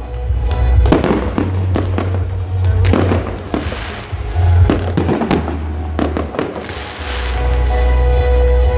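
A fireworks display going off: a continuous string of sharp bangs and crackles, several in quick succession at times, over a deep rumble.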